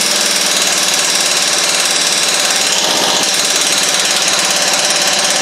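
Impact wrench hammering steadily and without a break, driving out a bolt of the Ford Focus's upper motor mount.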